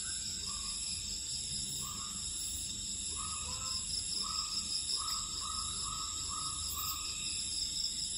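Steady, high-pitched insect chirring, like crickets, with a run of short repeated chirps, about three a second, in the middle.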